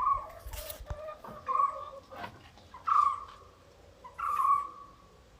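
Goat bleating repeatedly: four short calls, each falling a little in pitch, about a second and a half apart.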